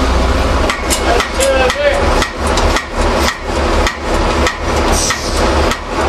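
Hammer blows on metal, a steady run of sharp knocks about two a second, each with a short ring, during work on a steel aerial mast.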